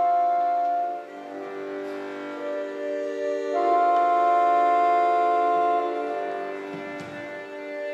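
Instrumental music of long held chords, dipping about a second in and swelling again midway.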